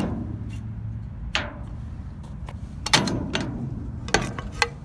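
Metal knocks and clicks as the latches of a box truck's pull-out loading ramp under the rear bumper are handled: several separate sharp hits, the loudest about three seconds in.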